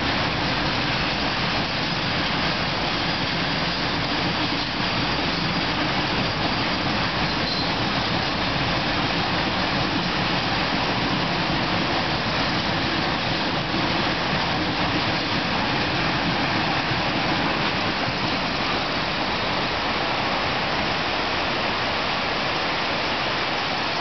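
Steady rolling noise of a rake of BCNA covered freight wagons crossing a bridge, mixed with the even rush of a nearby waterfall.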